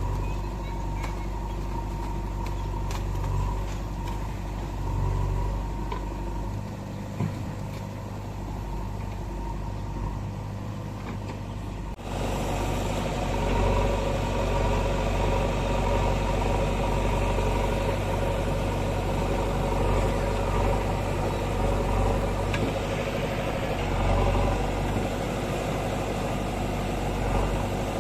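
Heavy diesel machinery engine running steadily. About midway the sound jumps suddenly louder and fuller.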